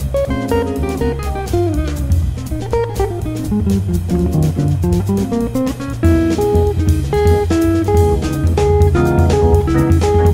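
Background music: plucked guitar over a drum kit with a steady beat, the bass and a repeated guitar figure growing louder about six seconds in.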